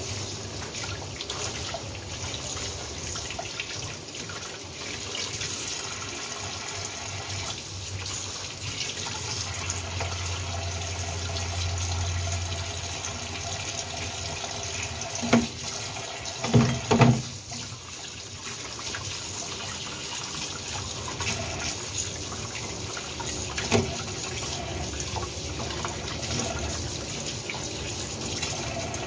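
Kitchen tap running into a stainless steel sink, water splashing as a small fish is rinsed under the stream. A few sharp knocks cut through, three close together a little past halfway and one more later.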